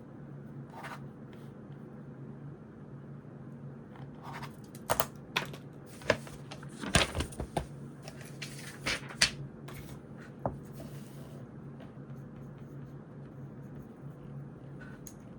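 Stationery being handled on a desk during study: a cluster of sharp clicks and taps through the middle, over a steady low hum.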